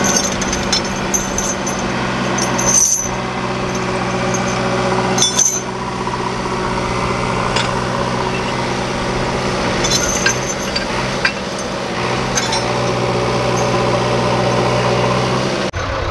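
Diesel engine idling steadily, with a few sharp metallic clinks and knocks from tractor hitch parts being handled.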